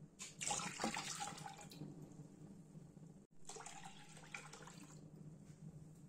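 Liquid poured from a cup into a saucepan of milk, splashing, in two pours. The first is the louder; the second starts after a brief break just after three seconds in.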